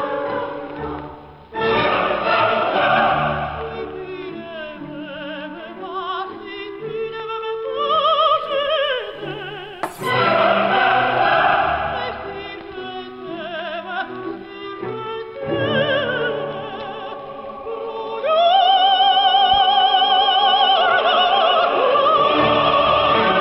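Operatic classical music: voices singing with strong vibrato over orchestra and choir, with a single sharp click about ten seconds in. The music swells near the end into a loud high note held with vibrato.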